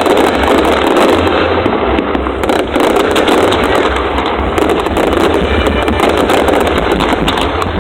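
Fireworks display going off continuously: dense crackling and popping over a steady low rumble.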